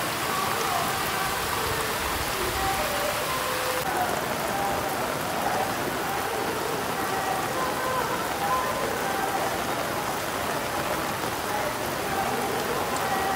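Steady heavy rain falling on stone and pavement, with faint voices of people in the background.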